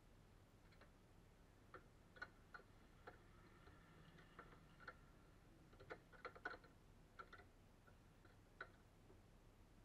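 Faint, irregular clicks and taps of hands handling rubber hoses and their fittings in an engine bay, with a small cluster of sharper clicks a little past the middle.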